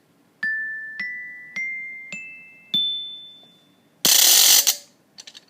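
Five single notes struck on a glockenspiel, stepping upward in pitch about every half second, each ringing and fading. About four seconds in comes a short, loud noisy rattle lasting under a second, then it cuts off.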